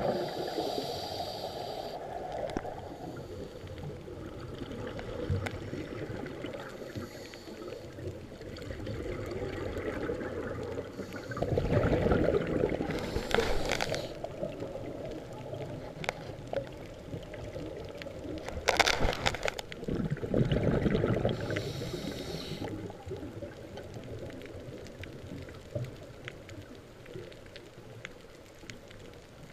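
Underwater ambience heard through a diving camera: a steady low rush of water, broken by louder bursts of scuba regulator exhaust bubbles, the biggest about twelve and nineteen seconds in.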